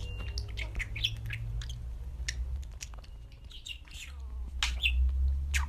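Budgerigar giving short, scattered chirps and clicks over a low steady hum.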